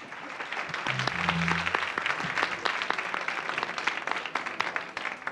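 Audience applauding, the clapping building over the first two seconds and thinning out near the end.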